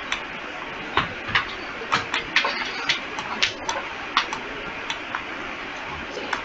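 Irregular light clicks and taps, a dozen or so spread unevenly, over a steady background hiss.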